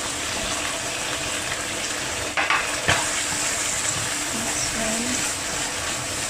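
Homemade pizza sauce sizzling in a pan as it is stirred and cooked, with two sharp knocks of the utensil against the pan about two and a half and three seconds in.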